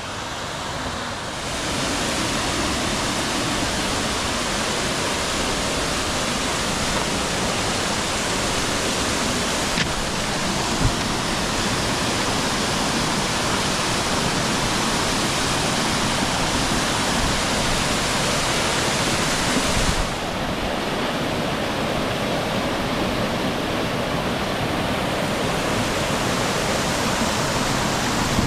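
Waterfall on a woodland river, a steady loud rush of falling water. It swells a second or two in and turns slightly duller about two-thirds of the way through.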